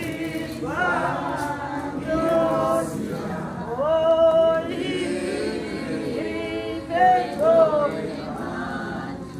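A congregation singing together in many voices, in held phrases that start with upward slides.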